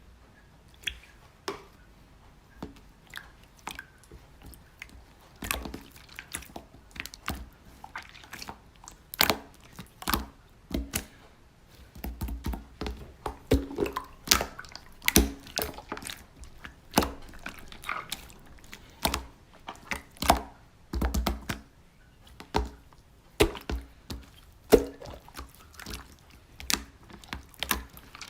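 Slime being played with by hand: irregular sticky clicks, pops and squelches, sparse at first and coming several a second from about five seconds in.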